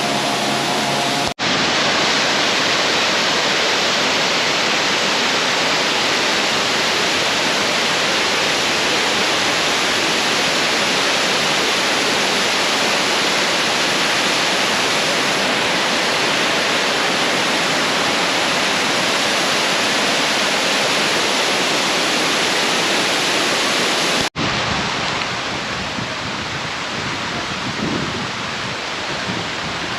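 Waterfall's falling water rushing, a loud, even hiss with no pitch to it. It breaks off abruptly about a second in and again near the end, then carries on slightly quieter.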